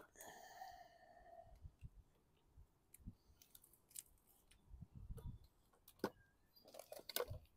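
Near silence with scattered faint clicks and knocks: a plastic-bodied gas hedge trimmer being handled and turned over, with a cluster of clicks near the end.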